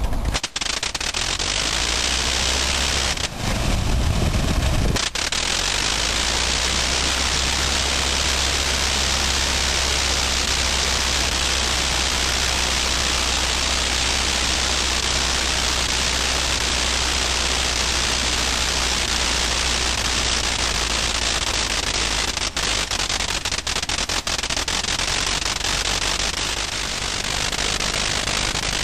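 Early rotary aero engine of a WWI-era monoplane running steadily on a ground engine run: a dense, even roar with much hiss and a low rumble beneath. The rumble turns briefly heavier and deeper about three to five seconds in.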